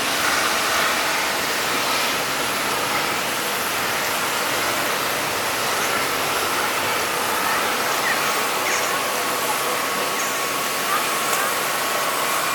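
Jet airliner engines running at idle on the apron: a steady rushing whine with a few held tones in it.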